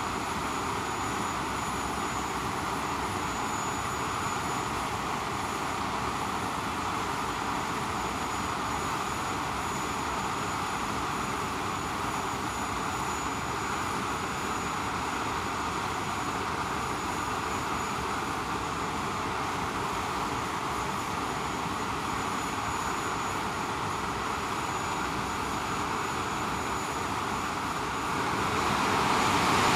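English Electric Lightning's twin Rolls-Royce Avon turbojets running steadily on a ground run, a roar with a thin high whine over it. It grows louder near the end.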